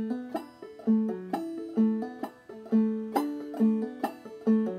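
Five-string banjo played clawhammer style in double D tuning (aDADE): the low part of an old-time D tune, plucked notes with hammer-ons in a steady bum-ditty rhythm, a strong note about twice a second.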